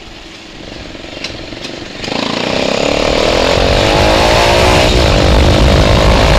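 Bajaj Pulsar 220 motorcycle with an aftermarket exhaust under way: quiet at first with two short ticks, then about two seconds in the throttle opens and the loud exhaust note climbs steadily in pitch for a few seconds before levelling off.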